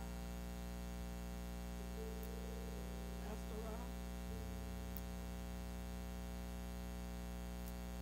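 Steady electrical mains hum, with faint, distant tones about two to four seconds in.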